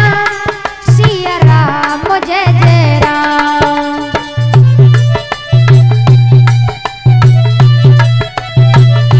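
Devotional bhajan music: a woman's voice holds and bends the end of a sung line for the first few seconds, then an instrumental passage follows of steady held chords over a driving tabla rhythm.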